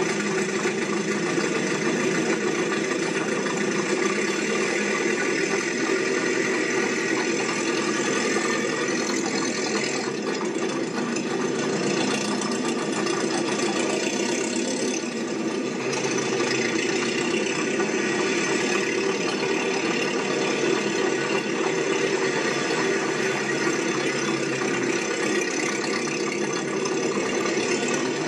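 A machine running steadily with a rattling clatter, unchanged throughout.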